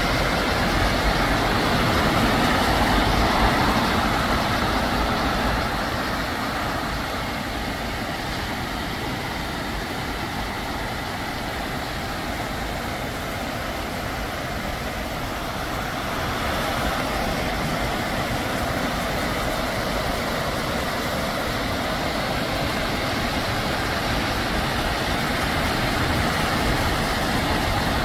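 Steady rushing of stream water spilling over a low weir, with rain falling; it dips a little for about ten seconds in the middle.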